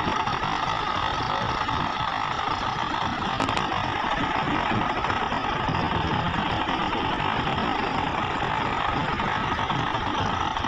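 Heavy diesel machinery, excavators and a dump truck, running steadily with an even engine drone.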